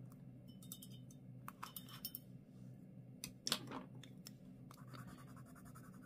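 Faint handling sounds at a desk: light clicks of wooden pencils being moved, with a sharper knock a little past halfway, then a brush scratching lightly across paper as it wets a watercolour pencil swatch.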